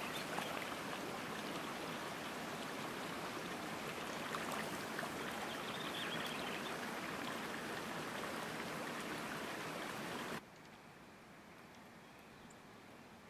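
Water running in a small, shallow stream: a steady trickle that cuts off suddenly about ten seconds in, leaving only a faint outdoor hush.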